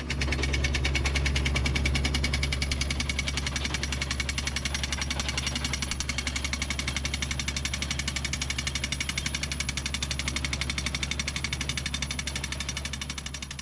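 Soil drill rig's percussion hammer pounding in a rapid, even rhythm over the rig's steady engine drone, fading out near the end.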